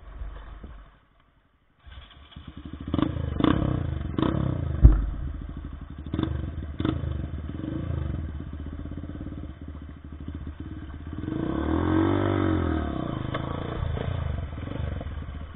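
Trail motorcycle engine running and revving over rough ground, with knocks and clatter; a loud knock about five seconds in, and near the end the engine revs up and falls back down.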